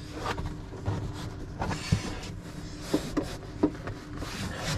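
Hands pressing and smoothing a spray-glued headlining panel against a yacht's cabin ceiling: irregular rustling of the fabric with a few short soft knocks.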